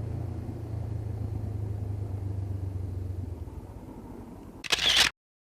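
Honda CB500X parallel-twin motorcycle engine running steadily at low revs, fading in the last second or so. It is followed by a brief loud rush of noise, then the sound cuts off suddenly.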